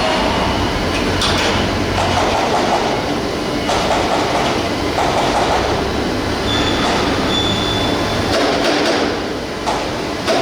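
Steady loud industrial machinery noise from a forging shop floor, with two short high whistle-like tones about two-thirds of the way through.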